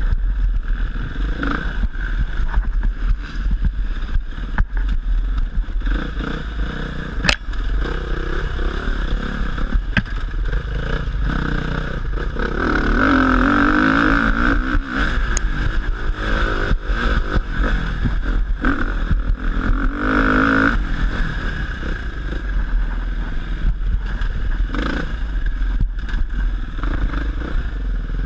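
Dirt bike engine running as it is ridden over a rough cross-country track, revving up hard for a couple of seconds about halfway through and again briefly later. Short knocks and clatter come from the bike over the bumps, over a steady low rumble of wind on the helmet microphone.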